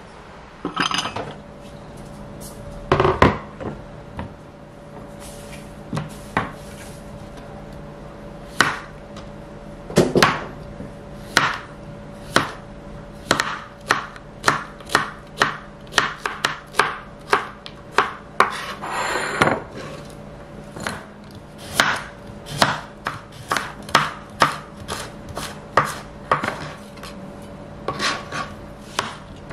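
Chef's knife slicing zucchini on a plastic cutting board. A few scattered knocks come first, then steady chopping strokes about two a second.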